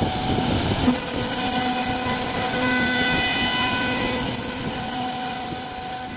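Wood-carving machine running: a steady machine hum with several held tones over a noisy cutting sound, with a short knock about a second in, gradually fading down toward the end.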